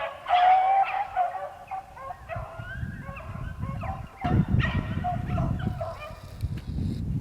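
A pack of beagles baying on a rabbit's trail: several dogs giving voice at once in overlapping, wavering calls. A low rumbling noise comes in about four seconds in.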